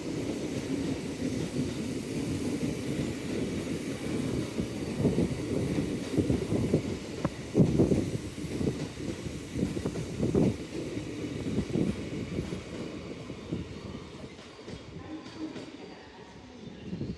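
Electric commuter train running along the platform, a steady rail rumble with wheels knocking over rail joints; it fades away over the last few seconds.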